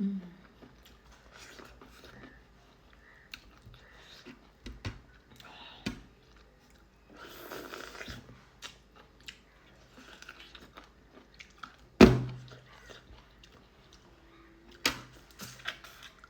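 A person chewing and eating a mouthful of spicy noodles with corn, with soft wet mouth clicks and smacks. A sharp knock about twelve seconds in, and a lighter one a few seconds later.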